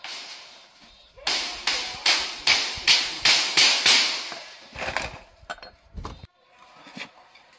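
A hammer driving a nail into wood: a quick run of about nine sharp blows, roughly three a second, followed by a few lighter taps.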